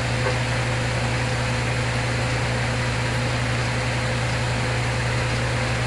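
Steady low hum with an even hiss and a faint constant tone above it: background noise of the room or equipment.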